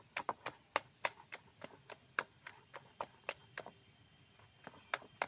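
A hand beating thick flour batter for jalebi in a stainless steel bowl: a quick run of sharp wet slaps, about three a second.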